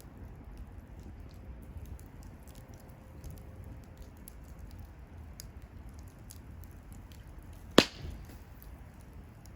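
Wood bonfire burning, with a low rumble and scattered faint crackles. Near the end there is one loud, sharp pop.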